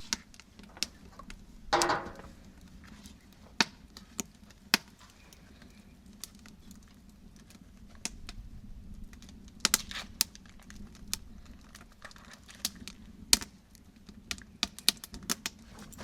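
Campfire crackling: irregular sharp pops and snaps, with a slightly longer burst about two seconds in.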